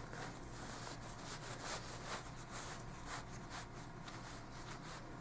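Faint rustling and rubbing of a necktie's fabric against a cotton shirt and fingers as the wide end is pushed through the knot and the knot is tightened. It comes as soft, irregular scrapes.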